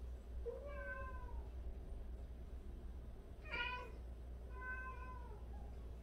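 Domestic cat meowing three times: a drawn-out meow, then a short higher one, then another drawn-out meow, each sliding down slightly in pitch at the end.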